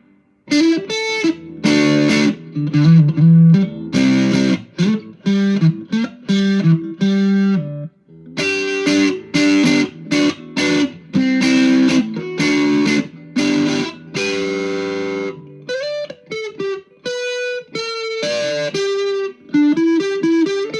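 Electric guitar on its middle pickup played through a JHS Ross Distortion pedal set to germanium mode: distorted chords in short strummed phrases, then a single-note lead line from about fifteen seconds in.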